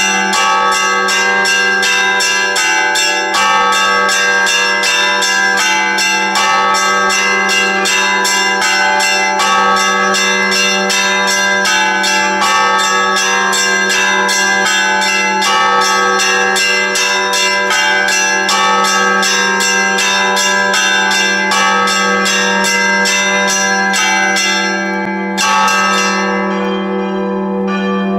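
Church bells rung in a fast, continuous peal, about three to four strikes a second across several bells of different pitch, over a steady low hum of the bells ringing on. About 25 seconds in, the striking stops and the bells are left ringing and fading.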